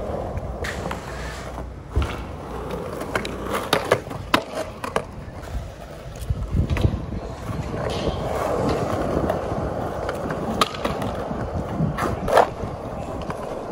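Skateboard wheels rolling with repeated sharp clacks of the board's tail popping and the board slapping down during kickflip attempts; the rolling is heaviest in the middle stretch and a loud clack comes near the end.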